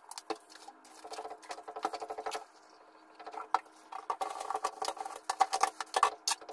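A dish being scrubbed by hand with a sponge at a kitchen sink: runs of quick, rhythmic rubbing strokes, pausing briefly a little before halfway, with a few sharp clinks of dishware.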